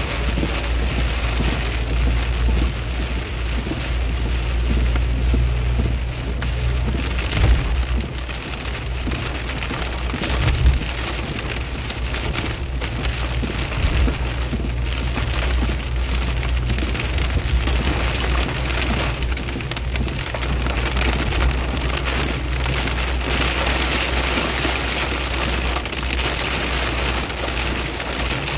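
A car driving in rain: an even hiss of rain and wet-road noise over a steady low rumble from the engine and road, with a few brief thuds near 7.5, 10.7 and 14 seconds.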